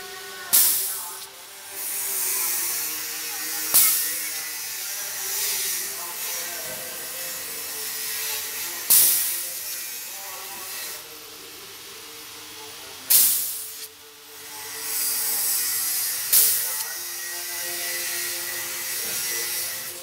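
Compressed air blown through a refrigerator evaporator's channels to flush out trapped water and oil: five sudden loud blasts of hiss as the held-back air is let go, each fading into a steadier hiss.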